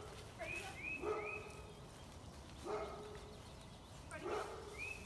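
A dog barking at a steady pace, one bark about every second and a half. Between the barks, two quick runs of three high chirps.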